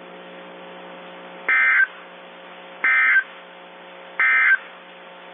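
Emergency Alert System end-of-message tones: three short, identical digital data bursts (the "NNNN" EOM code), about 1.4 seconds apart, closing a tornado warning broadcast. They sound over a steady low buzz, and the audio is band-limited like a radio or weather-radio feed.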